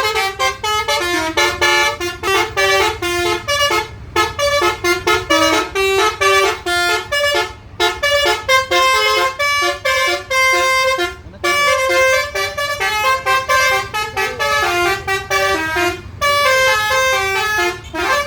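Bus telolet horn of the basuri type playing a quick melody of short, changing-pitch horn notes, with a few brief pauses between phrases.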